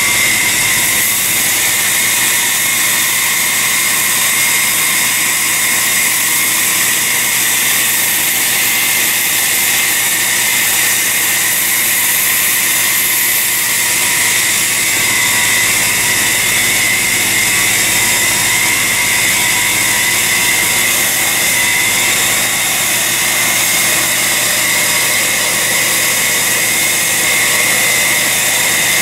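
2x72 belt grinder rough-grinding a forged steel blade made from a Heller file: a steady, unbroken grinding hiss with a high whine running under it as the steel is held to the belt.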